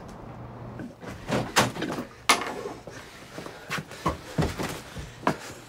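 A string of short, sharp knocks and clatters, about seven of them spread over a few seconds, the loudest about two seconds in.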